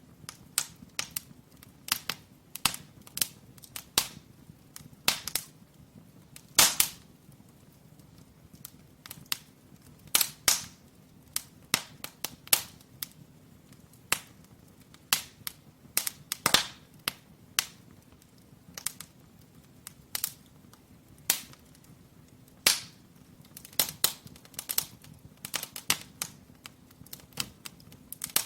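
Firewood burning in a brick fireplace, crackling with irregular sharp pops, a few of them loud, over a faint low hum.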